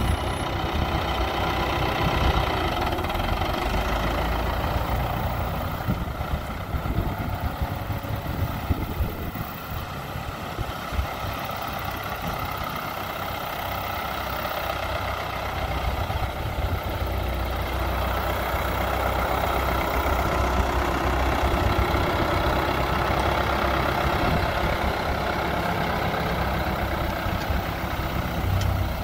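1979 Ford 7700 tractor's diesel engine running steadily with a deep rumble. It eases off around ten seconds in and picks up again from about sixteen seconds as the tractor drives off.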